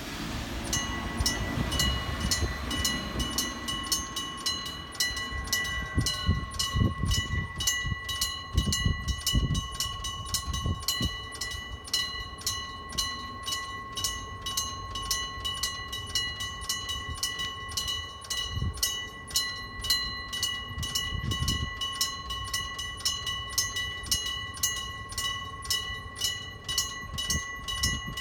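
Electric crossing bell of an old-style level crossing starting to ring about a second in, then struck rhythmically a few times a second with a steady metallic ring. A train's low rumble passes under it partway through.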